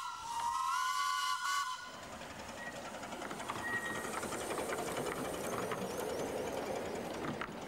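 Whistle of a minimum-gauge steam locomotive, a steady chord of several tones that dips briefly in pitch and then stops about two seconds in. The engine then runs past over the level crossing with a steady rush of steam hiss and faint clicks.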